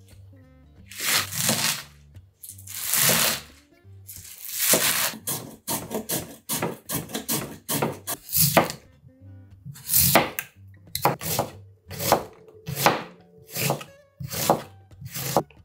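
Repeated knife and slicer strokes cutting vegetables on a plastic cutting board. Garlic chives are sliced at the start, a carrot is shredded on a hand slicer in longer scraping strokes, and Korean radish is cut into matchsticks with steady knife strokes near the end.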